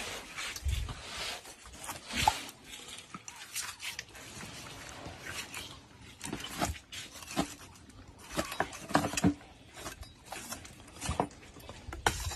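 Large knife cutting through a roasted pig's meat and joints as it is deboned, with irregular sharp crackles and knocks.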